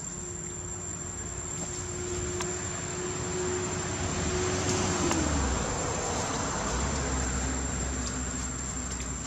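A motor vehicle passing by: its engine hum swells, and its pitch drops about halfway through as it goes past. Under it runs a steady high-pitched insect drone.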